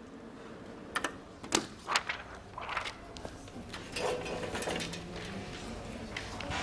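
Clicks and handling noise at the lecture desk: three sharp clicks about a second in, then irregular rustling and light clattering as things are moved on and around the overhead projector, over a steady low hum.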